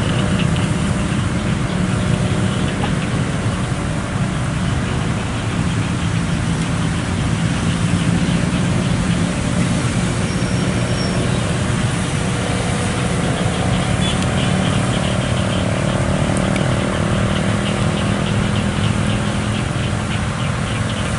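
Steady din of idling motorcycle and scooter engines with road traffic, a continuous low engine hum that holds level throughout.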